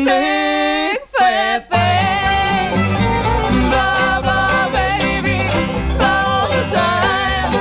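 Hillbilly bluegrass-country band music with a steady beat and no singing: an instrumental break. The band cuts out briefly about a second in, then comes back in.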